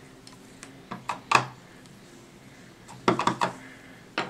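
Clear acrylic stamp block and hard plastic Stamp-a-ma-jig positioning tool knocking and clicking against each other and the tabletop as the stamp is lined up: a sharp knock about a second in, a quick run of clicks about three seconds in, and another click near the end.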